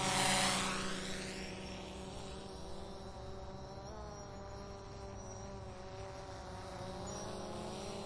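A drone's propellers buzzing as it flies past. The buzz swells to its loudest just under a second in, settles into a steady whine, and grows louder again near the end.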